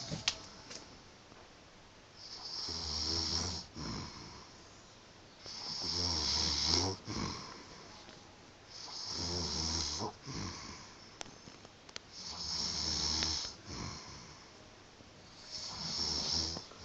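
A man snoring in his sleep: five snores about every three and a half seconds, each lasting about a second and a half, with quiet gaps between them.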